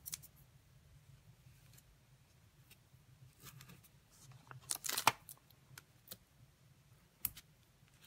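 Faint clicks and taps of cardstock and Stampin' Dimensionals foam adhesive squares being handled as a card front is pressed into place, the loudest tap about five seconds in, over a low steady hum.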